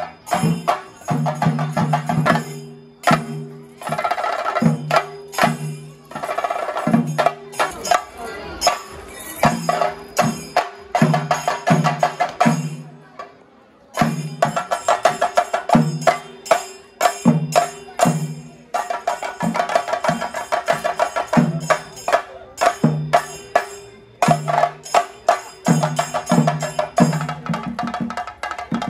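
Theyyam percussion ensemble playing fast, dense rhythms: pitched chenda drum strokes under ringing hand cymbals. The playing dips briefly about thirteen seconds in, then resumes.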